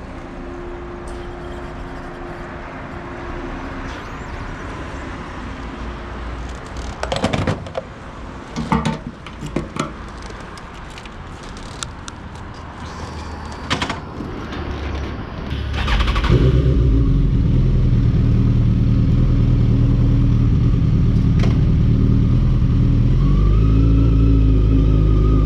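A few clatters and knocks over steady background noise, then about two-thirds of the way in a motorcycle engine comes in loud and runs steadily.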